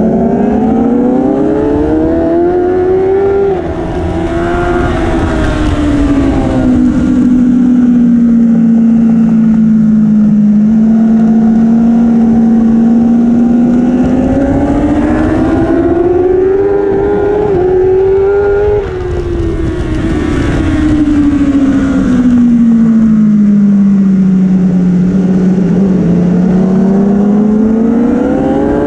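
Onboard sound of a Kawasaki superbike engine racing on track, its pitch climbing under throttle and falling away through the corners. The throttle is shut briefly twice, about 4 and 19 seconds in, and there is rushing wind on the microphone.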